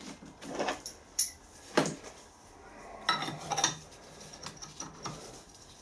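Light metallic clinks and a short rattle as a bearing is set by hand into a steel half-shaft bearing housing, with a busier cluster of clinks about three seconds in.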